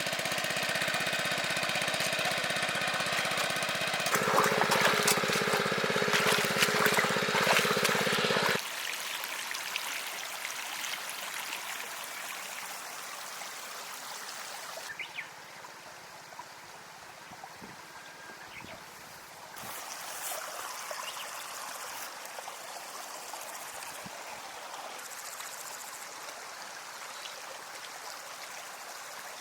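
A small engine runs steadily, gets louder about four seconds in and cuts off suddenly at about eight seconds. After that only water is heard, trickling and flowing steadily.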